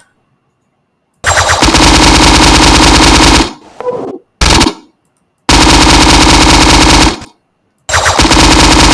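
A loud sound effect of rapid-fire rattling strikes, played back as repeated bursts of about two seconds each, with a short burst between the first two.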